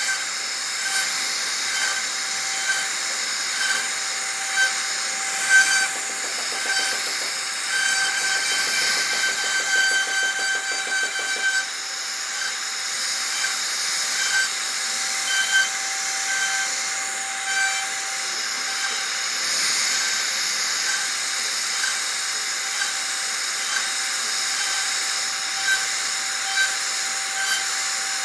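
CNC router spindle running with a steady whine while its bit cuts into wood, giving a continuous hissing cutting noise with faint regular ticks about once a second.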